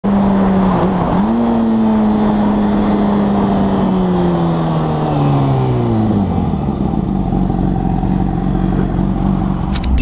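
Honda CBR600RR inline-four engine heard onboard with a brief dip in pitch about a second in, then its note falling steadily as the bike slows on engine braking, settling to a low run.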